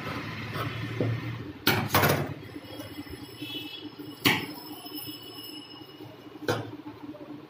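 Tailor's scissors cutting through cloth, with the cut fabric then lifted and shifted on the table: a few short, sharp snips and rustles, the loudest about two seconds in.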